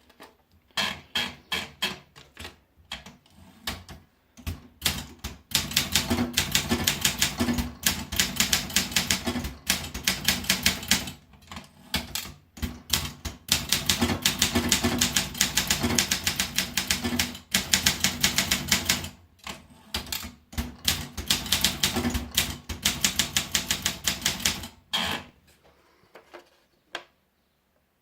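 Olympia Monica manual portable typewriter being typed on: a few slower key strikes at first, then fast runs of clacking keystrokes broken by short pauses, stopping about a second before the end.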